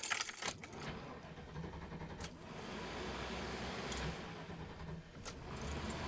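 Ignition keys jangling at the steering column of a Chevrolet P30-chassis motorhome, then its engine starting and settling into a low, steady run, with a couple of sharp clicks.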